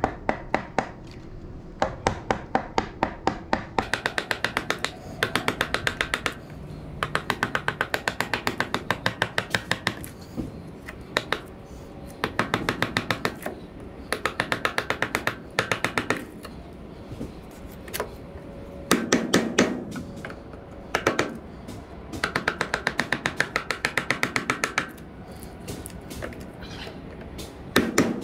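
Mallet striking a chisel cutting into a wooden board: rapid sharp taps, several a second, in runs of a second or few with short pauses between.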